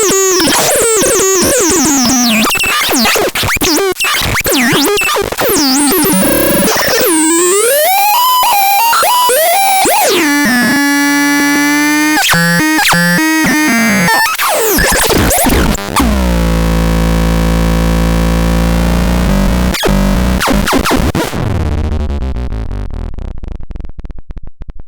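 Synthesizer making harsh, noisy electronic sounds with sweeping pitch glides and rapid stuttering. About fifteen seconds in it settles into a low buzzing drone with dense overtones, which fades out near the end.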